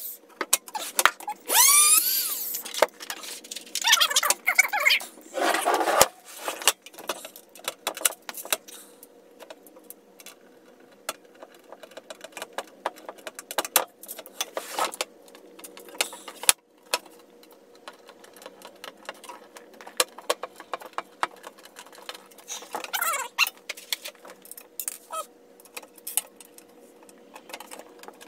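Small metal clicks and clinks of screws, hardware and a tool against a white metal desk frame being assembled by hand, scattered irregularly. A few short squeaky gliding sounds come in the first few seconds and again around 23 s.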